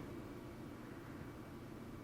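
Faint, steady room tone: a low even hiss with no distinct sounds.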